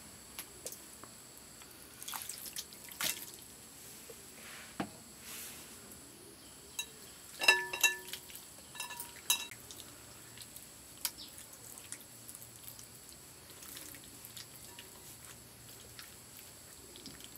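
Hands squishing fish pieces through a wet spice paste in a glass bowl: quiet wet squelches and scattered clicks. A couple of ringing clinks from the glass bowl come about halfway through.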